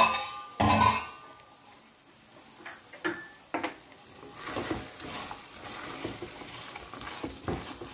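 A loud clatter about half a second in, then a spatula knocking and scraping through chicken masala in a kadai. From about four seconds in, as the stirring starts, it sizzles steadily. The chicken is cooked through and the oil is starting to separate from the masala.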